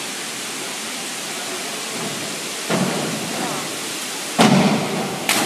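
Steady noise of an indoor diving pool hall, then a springboard bangs a little under three seconds in as the synchronised pair take off. Near the end comes the loudest sound: the splash of the two divers entering the water.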